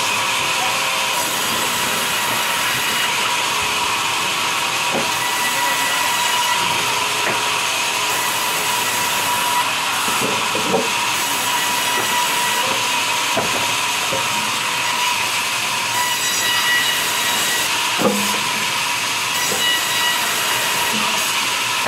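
Large sawmill band saw running and cutting logs into planks: a steady whine with a hissing blade noise, and a few wooden knocks as timber is handled.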